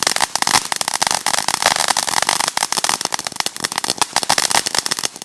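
Consumer firework fountain spraying crackling stars: a dense, rapid crackle of countless small pops.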